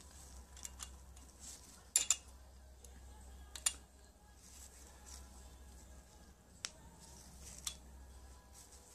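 Scattered sharp metallic clicks from a ratchet wrench turning a nut to unscrew a rusty exhaust stud from the cylinder head. The loudest is a pair about two seconds in; the rest come a second or so apart.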